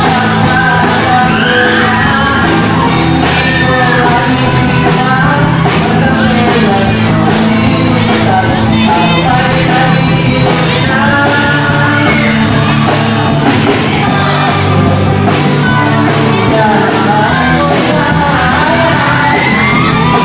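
Live band playing loud through a PA speaker, with a man singing lead into a microphone over the drums and instruments.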